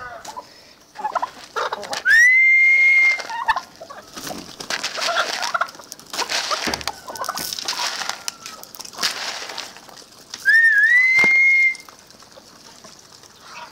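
Mixed poultry flock calling and scrambling: two loud, long, high whistle-like calls of about a second each, one about two seconds in and one about ten seconds in, with clucking, wing flapping and scuffling in between.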